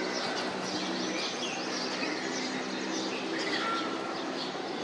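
Small birds chirping in a dense chorus, with many short high chirps throughout and a brief whistled note about three and a half seconds in, over a steady low hum.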